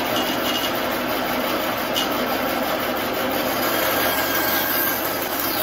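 Bandsaw running and cutting freehand through a blank of fruit-tree wood, trimming its rough edges off. A steady, even cutting noise.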